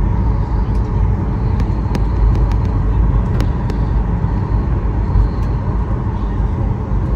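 Airliner cabin noise: the jet engines and airframe make a steady low rumble, with a few light rattles.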